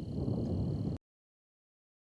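Storm ambience: a low rumble that swells slightly just after the start, with a faint steady high-pitched hum above it. It cuts off suddenly about a second in.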